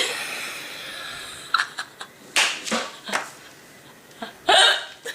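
A woman's hiccups: sudden, sharp gulps a second or two apart, mixed with stifled snickering laughter.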